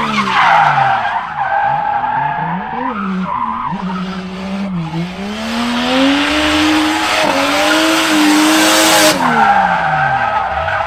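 Toyota Chaser drift car drifting: the engine revs rise and fall again and again as the tyres squeal and skid. The squeal is strongest a little past the middle, and the revs drop off near the end.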